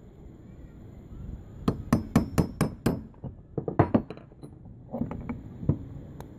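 Sharp knocks on the metal parts of a disassembled electric water pump motor: a quick run of about six strikes in just over a second, then more knocks and clinks in short clusters as parts are worked loose.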